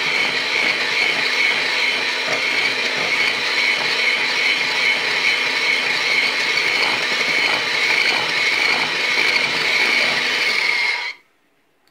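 Electric hand mixer running at a steady speed, its wire beaters whisking a runny egg mixture in a stainless steel bowl: a steady whine with rattling, switched off suddenly about eleven seconds in.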